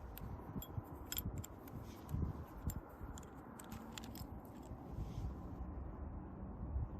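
Irregular light clicks and handling noises over a low rumble, like tools and small parts being handled during work on a motorcycle.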